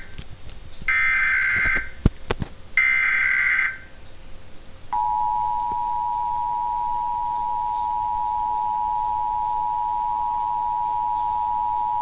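Emergency Alert System test broadcast: the last two of the three SAME header bursts of shrill digital data tones, about a second each, with two sharp clicks between them. About five seconds in, the steady two-tone EAS attention signal (853 and 960 Hz sounded together) starts and holds.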